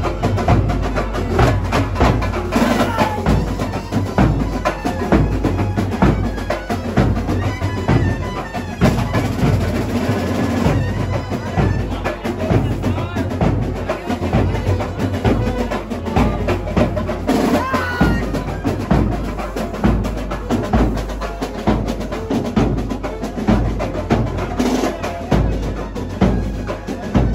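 Street procession band playing: a steady, heavy bass-drum beat with other drums, and a saxophone carrying the melody above it, its notes bending in places.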